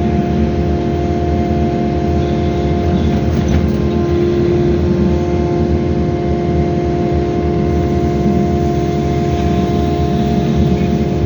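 Excavator's diesel engine running steadily at working speed, with a constant hum and a rumbling low end.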